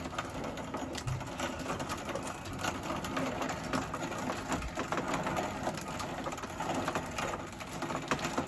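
Grain mill grinding dried shelled corn into a powder-like meal: a steady run of rapid crunching and rattling clicks.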